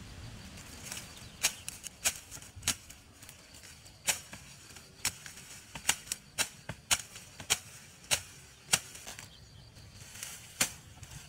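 Dry grass stems snapping one at a time as a clump of tall grass is cut down at the base: about a dozen crisp, sharp cracks at an irregular pace of roughly one or two a second.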